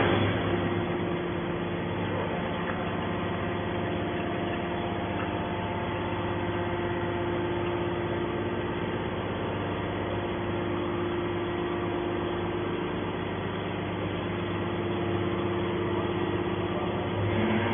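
Hydraulic metal baler's electric motor and hydraulic pump running steadily: an even machine hum with several steady tones.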